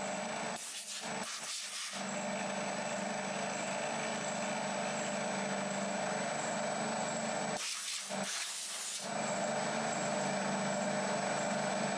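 Milling machine spindle running steadily with an end mill cutting a flat on a Delrin part, a constant mechanical hum. Two short spells of hiss come through, about a second in and again about eight seconds in.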